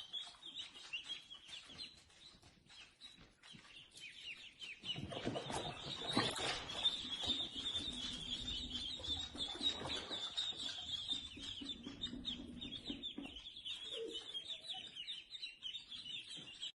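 Many small birds chirping in a dense, continuous high-pitched chatter, with a faint low rumble joining about five seconds in.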